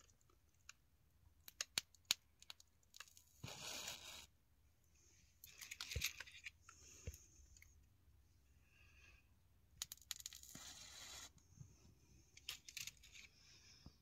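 Faint rustling and crackling as leaves and twigs brush close to a handheld phone: scattered sharp clicks, then three short bursts of scraping rustle.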